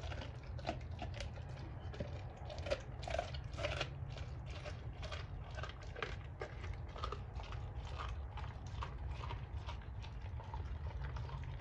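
A Doberman chewing and biting a raw pork bone with meat on it: a run of irregular crunches and clicks, over a steady low hum.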